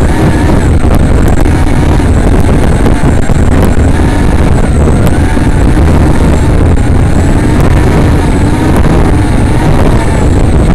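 Brushless motors and propellers of a 3-inch FPV quadcopter whining, the pitch rising and falling in smooth swoops as the throttle changes. A heavy rumble of prop wash and wind runs under it on the onboard microphone.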